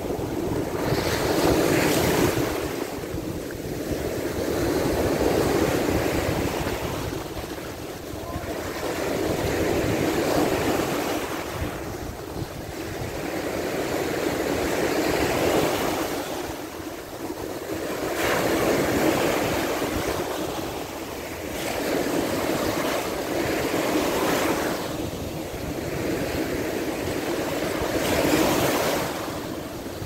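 Sea surf: waves breaking and washing up the beach, swelling and fading about every four to five seconds, with wind buffeting the microphone.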